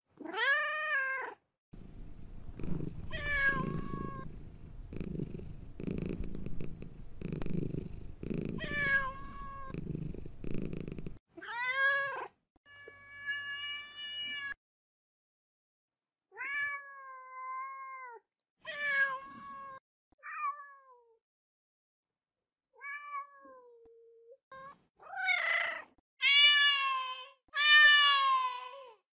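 Domestic cats meowing: a string of separate meows of varying pitch, most short and arching. About halfway through there is one long, held call, and near the end a quick run of high meows. Under the meows in the first third, a low rumble pulses about once a second.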